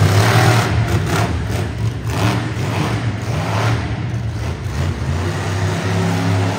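Monster truck engine running loud and revving, its pitch rising and falling in repeated surges of throttle.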